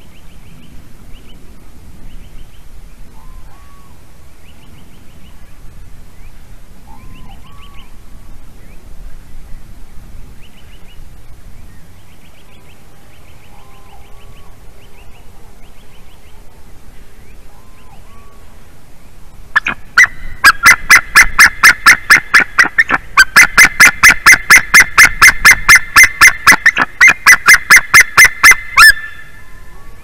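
White-tailed eagle calling loudly in a long rapid series of calls, several a second, that starts about two-thirds of the way in, pauses briefly, resumes and stops abruptly near the end. Before it, only faint calls of small birds.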